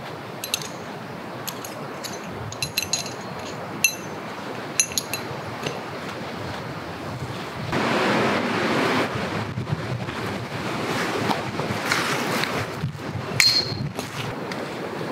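Light metallic clinks from an aluminium telescoping tarp pole being handled and fitted to a tarp corner, a dozen or so sharp ringing ticks in the first five seconds and a few more near the end, over a steady rush of wind. A louder swell of rustling about eight seconds in.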